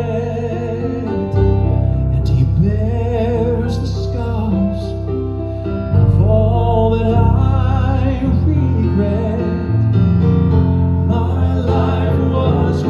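Southern gospel music from a vocal quartet with band accompaniment, playing between sung lines of the song, with a full bass underneath.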